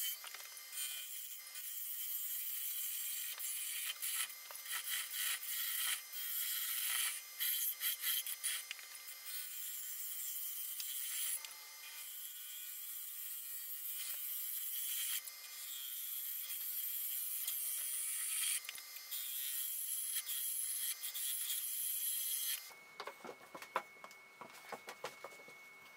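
A gouge cutting into a wood blank spinning on a lathe, hollowing out its face: a high hissing shear in repeated passes with short breaks. About three-quarters of the way through the cutting stops, leaving only faint scattered ticks.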